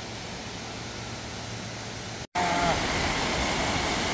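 Steady rush of water pouring over a low concrete dam. The sound drops out briefly a little over two seconds in, then comes back louder.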